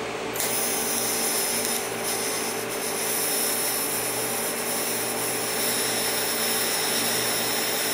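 Electric grinder grinding a piece of stainless steel surgical implement. The motor hums steadily under a continuous grinding noise with high whine, starting about half a second in.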